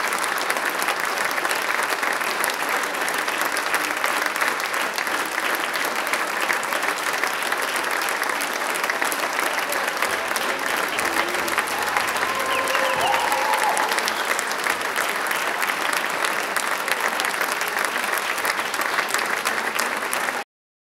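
Theatre audience applauding steadily at the curtain call, a dense patter of many hands clapping, with a few brief voices calling out around the middle. It cuts off abruptly at the very end.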